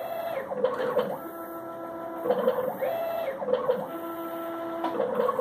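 Stepper motors of a home-built CNC machine running a G-code program: a whine of several tones that changes pitch every second or so, with short glides up and down as the axes speed up and slow down.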